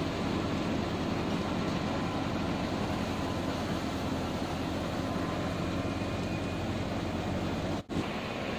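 Tractor-driven mung bean thresher running: a steady drone of the tractor engine, the PTO shaft, the belts and the spinning threshing drum. The sound drops out for an instant near the end.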